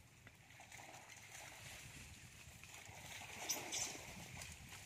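Faint rustling noise with a few light clicks, two of them close together a little past the middle.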